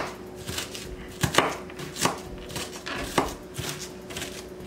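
Kitchen knife finely dicing onion on a plastic cutting board: the blade knocks against the board in uneven strokes, about one or two a second.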